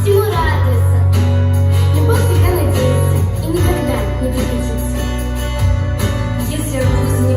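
Pop song playing: a backing track with a heavy, steady bass and a singing voice over it, without clear words.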